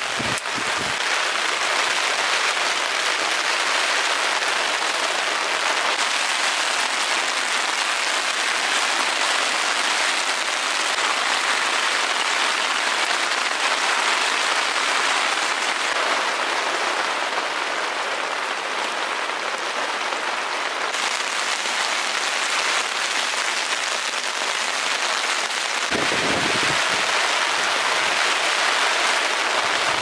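Heavy downpour falling on tent and tarp fabric: a steady, dense hiss of rain, with a few dull knocks near the end.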